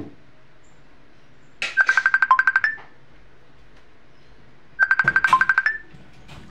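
Electronic phone ringtone: a fast run of beeps on one high pitch that dips once to a lower note and ends on a slightly higher one, sounding twice about three seconds apart.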